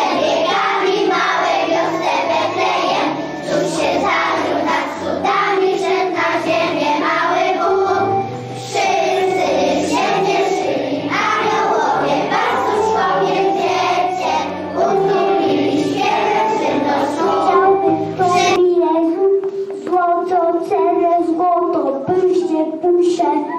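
Young children singing a Christmas song together over an instrumental accompaniment. About three-quarters of the way through, the accompaniment's bass drops away and the children's voices carry on almost alone.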